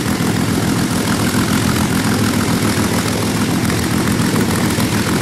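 Early Mark III Rolls-Royce Merlin supercharged V12 aero engine running loud and steady, exhausting straight out of its open exhaust ports with no exhaust stubs fitted.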